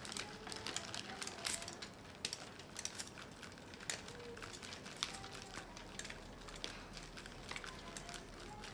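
A block of cheese rubbed on a flat handheld metal grater: a fast, irregular run of short, faint rasping scrapes.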